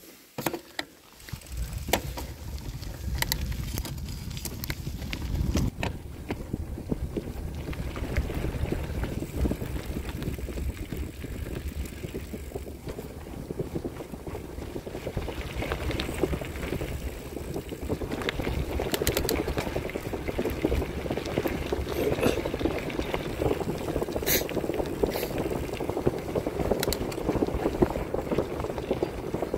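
Bicycle riding along a dirt forest track: wind buffeting the microphone and tyres rumbling over the ground, with scattered sharp clicks and rattles from the bike going over bumps. It starts about a second in as the bike sets off.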